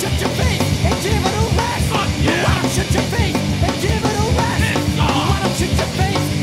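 Punk rock band recording playing at full tilt, with a fast driving drum kit under guitars.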